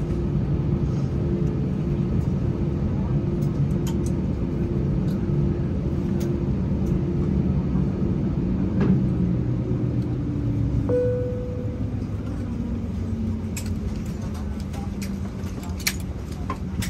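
Steady hum inside the cabin of an Airbus A321 parked at the gate. Its tones slide lower about halfway through, a brief single tone sounds near the middle, and a few clicks come near the end.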